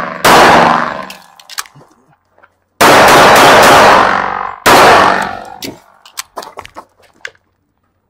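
Three loud pistol shots from a .45 ACP 1911 semi-automatic, about two seconds apart, each trailing off in a long echo. A few light clicks follow near the end.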